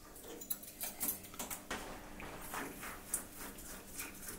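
Scattered light metallic clicks and taps as drill bits and lathe tooling are handled during a drill change.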